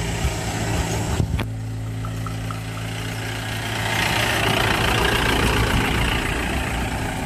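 Open-topped 4x4 safari jeep's engine running as the jeep drives up close, growing louder about four seconds in. There is a short knock about a second in.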